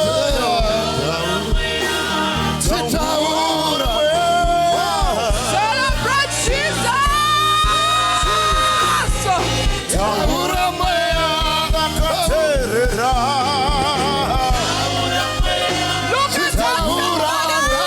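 Worship music: voices singing with vibrato over a steady beat of drums and bass.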